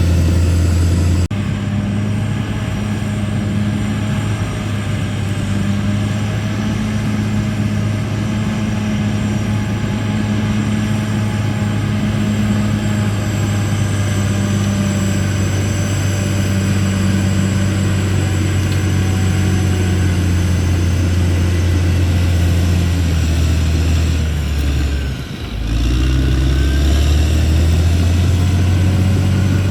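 CAT D6R XL bulldozer's diesel engine running steadily at work, with a deep, even engine note. The sound changes abruptly about a second in, and near the 25-second mark the engine note briefly drops in pitch and level before coming back.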